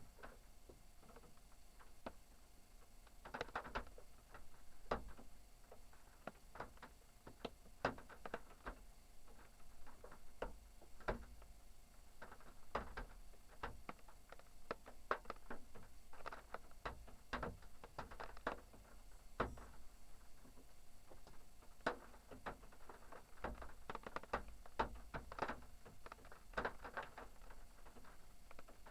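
Faint, irregular clicks and light knocks, sometimes several a second, over a low steady rumble.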